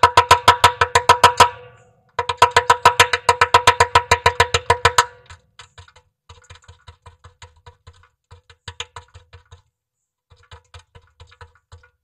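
A woodpecker hammering its bill on the wood of a nest box, a fast run of sharp knocks at about eight a second, ringing hollow inside the box. It comes in runs: two loud runs of a few seconds each, then softer, lighter pecking.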